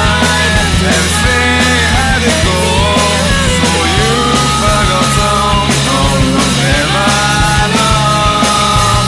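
Shoegaze rock music: a wall of loud, distorted guitars over bass and drums, with a sliding melody line on top. The bass note changes about four seconds in.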